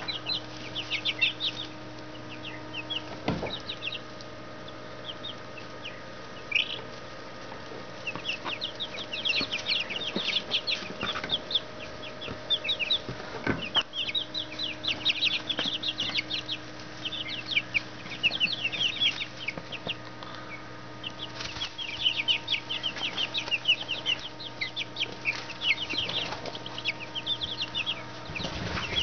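Brooder of about three-week-old Black Australorp chicks peeping in quick runs of short, high chirps, many birds at once. A faint steady hum lies underneath, with two soft knocks.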